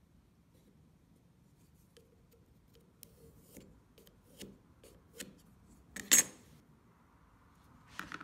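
Pencil marking a wood block along a steel ruler: a series of short, light scratches and clicks, then one loud sharp knock about six seconds in and a few lighter knocks near the end as the ruler, block and pencil are handled and set down on a cutting mat.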